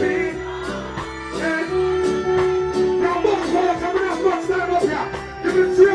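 Live reggae band music with a steady beat and a male vocalist singing over it through a microphone.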